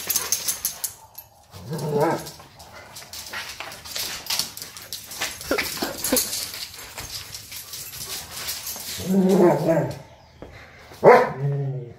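A dog whining and giving drawn-out calls several times: once about two seconds in, again around nine seconds, and loudest about eleven seconds in.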